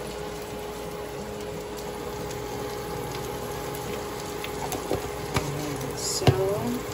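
Diced ham and corn frying in a pan on an induction cooker: a low sizzle over the cooker's steady hum, with a few light clicks and one sharper knock about six seconds in.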